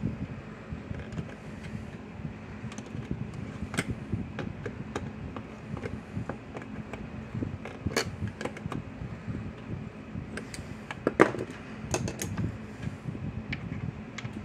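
Needle-nose pliers tightening small nuts on the metal terminal bolts of a plastic fence charger case: scattered small metal clicks and taps, with one sharper knock about three quarters of the way through, over a steady low hum.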